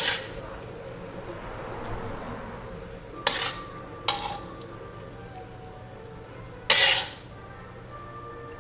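Metal ladle stirring sauce in a steel wok, with three sharp clinks against the wok, about three, four and seven seconds in, that ring briefly. A faint steady sizzle of the sauce cooking lies underneath.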